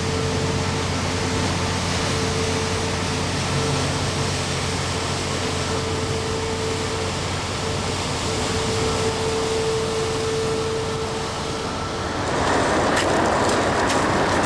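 Marine diesel engine running steadily with a low hum and a droning tone. About twelve seconds in a louder rushing noise joins it, with a few sharp clicks near the end.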